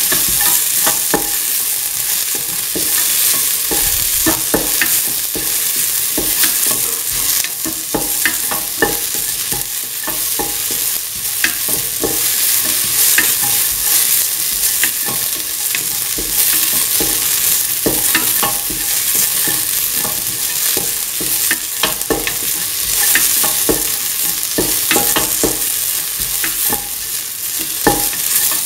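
Chopped onions, shallots and fennel seeds sizzling in oil in a stainless steel pan, with a steady high hiss, while a utensil stirring them scrapes and clicks irregularly against the pan.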